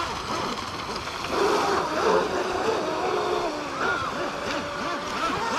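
Two radio-controlled speedboats running on open water, their motors whining up and down in pitch as they turn and throttle, with the splash and hiss of their wakes.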